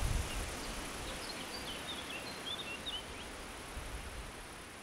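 Outdoor ambience with a steady hiss, and a small bird chirping in a quick run of short high notes for a couple of seconds in the middle; the whole sound slowly fades out toward the end.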